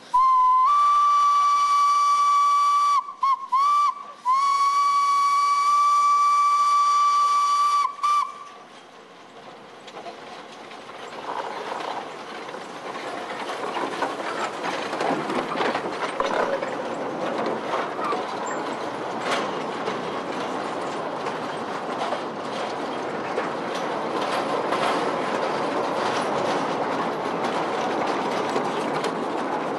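Narrow-gauge steam locomotive whistle: one long steady blast, briefly broken twice around three to four seconds in, stopping about eight seconds in. Then the train's running noise builds up and stays loud as it draws near.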